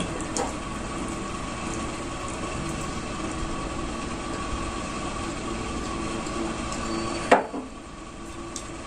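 Steady mechanical hum of a room appliance, with one sharp knock on the table about seven seconds in, after which the hum is a little quieter.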